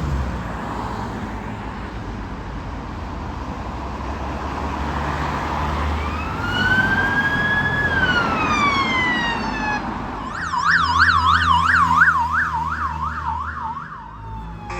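Electronic emergency-vehicle siren passing in road traffic: about six seconds in it gives one slow wail rising and falling, then switches to a fast yelp of about three to four rises a second, which stops shortly before the end. Before the siren comes in there is only steady traffic noise.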